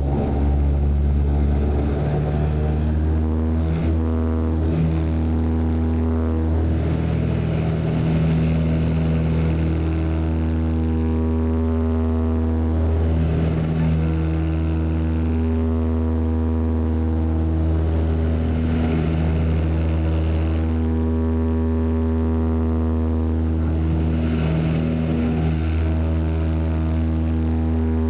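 De Havilland Canada Dash 8-300's Pratt & Whitney Canada PW123 turboprop engines and propellers at takeoff power during the takeoff roll, heard from inside the cabin beside the engine: a loud, steady deep drone with several steady tones layered above it.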